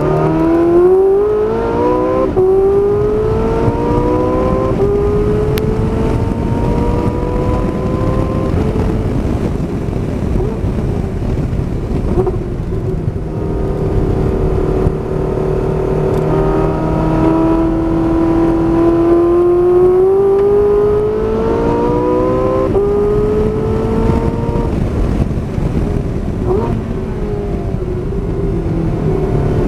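Porsche 918 Spyder's V8 engine pulling hard under acceleration, heard from the open cockpit: its note climbs in pitch, drops back at a shift or a lift, then climbs again twice more. Steady wind and road noise runs underneath.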